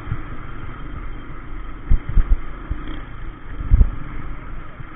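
Motorbike riding in traffic heard from an on-board camera: a steady low engine and road rumble with wind noise on the microphone. A few heavier low thuds come about two seconds in and near four seconds.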